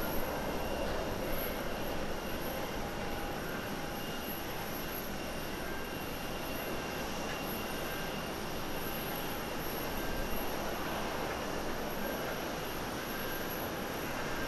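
Airbus A350-900's Rolls-Royce Trent XWB turbofans on final approach at low thrust: a steady jet rush with a faint high whine, even in level.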